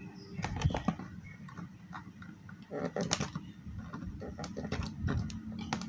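Pliers twisting the bare copper ends of electrical cable conductors together into a splice: irregular small clicks and scrapes of metal on wire, busiest about three seconds in, as the joint is tightened until firm.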